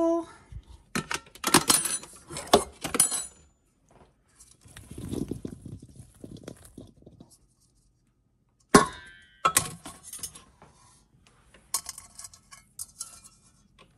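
Cooked beets being tipped and scooped from a pot into a stainless steel bowl: clinks and clatter of metal and beets landing, in several bursts, with a softer scraping stretch in between.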